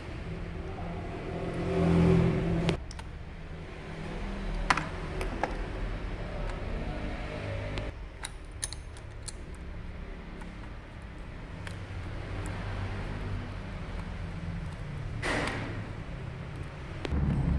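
A steady low engine hum in the workshop, with scattered light metal clicks and taps of tools on injection-pump parts and a short scrape about fifteen seconds in.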